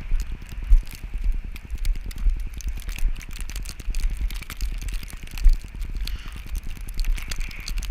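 Wind buffeting a GoPro's microphone in a snowstorm: a steady, uneven low rumble with many small crackles and clicks over it.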